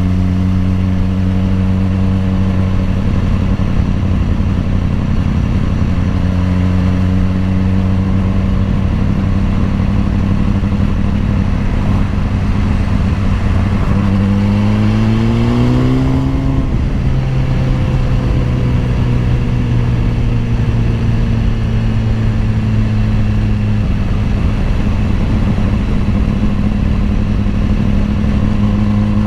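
BMW S1000RR's inline-four engine running at steady revs on the move. About halfway through the revs climb quickly, then ease slowly back down.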